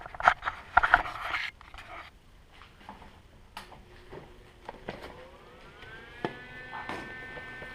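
Clicks and handling clatter, then about five seconds in a rising whine that levels off into a steady hum: a Lincoln 180 MIG welder switched on, its cooling fan spinning up.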